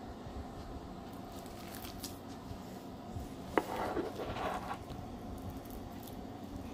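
Clumpy foam-bead slime being squished and pulled by hand, with faint crackles. A single sharp knock comes a little past halfway, followed by about a second of rustling.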